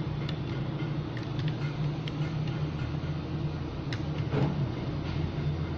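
Steady low mechanical hum, with scattered light clicks and ticks over it.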